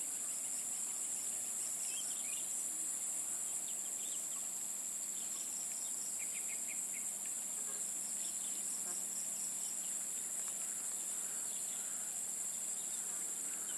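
Steady, high-pitched insect chorus, with a few faint bird chirps over it.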